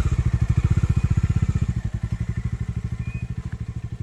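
Bajaj Dominar 400's single-cylinder engine running at low revs with an even pulse, growing fainter as the motorcycle rides away.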